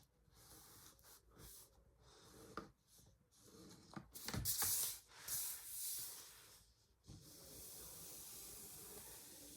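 Faint rustling and handling noises from working with sewing materials, a louder stretch of rustling about four to six seconds in, then a steady faint hiss.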